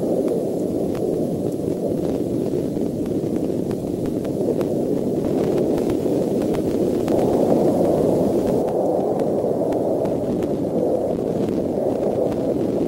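Steady outdoor background rush picked up by the nest-cam microphone, with faint scattered ticks; no eagle calls.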